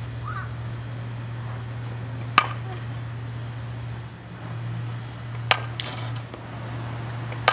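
Pitched softballs landing with sharp smacks, three in all: about a third of the way in, about three quarters of the way in, and near the end, over a steady low hum.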